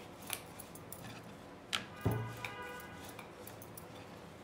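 Wooden rolling pin working dough on a round wooden rolling board, with light clicks and a pair of wooden knocks about halfway through, the second with a short low thud as the board shifts on the glass tabletop.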